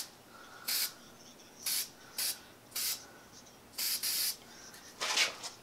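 Aerosol spray can hissing in short squirts into a drill press head, about six bursts with a longer double squirt about four seconds in.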